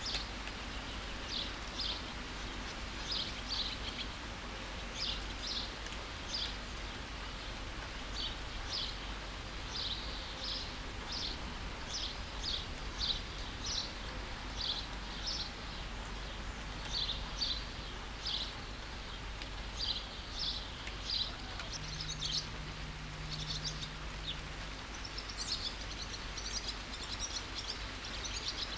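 Steady rain hiss with a small bird chirping over it, short high notes repeating about once or twice a second, becoming a denser twittering near the end.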